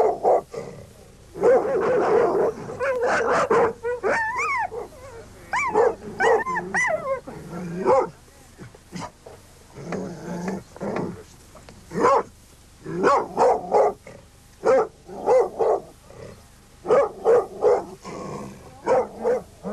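Kennel dogs, pit bull terriers among them, barking in short, repeated bursts, with higher whining yelps that rise and fall in pitch about four to seven seconds in.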